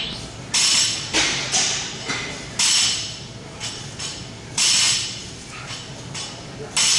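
Loaded barbell clanking during power cleans: about five sharp metallic clanks a second or two apart, each ringing briefly, as the plates rattle when the bar is pulled, caught and set back down.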